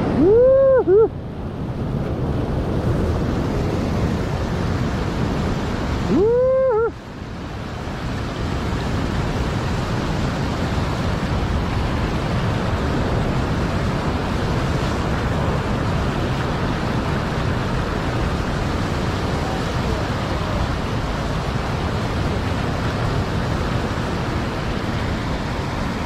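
Sea surf surging and washing over a rock shelf, a continuous rushing of breaking waves and foam. Two short pitched calls rise and fall over it, one at the very start and one about six seconds in.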